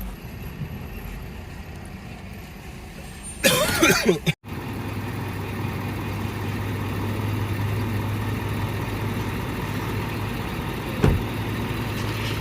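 A vehicle's engine running with a steady low drone. About four seconds in there is a short loud burst with a wavering pitch, then the sound cuts off abruptly, and a single click comes near the end.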